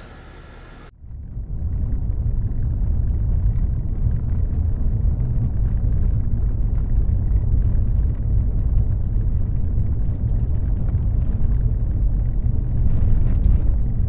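Car driving on the road: a steady low rumble that starts about a second in and holds level.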